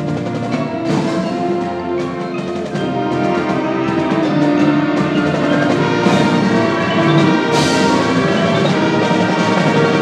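Marching band playing: brass and woodwinds hold sustained chords over marimbas and other mallet percussion, with sharp percussion accents. The music grows steadily louder.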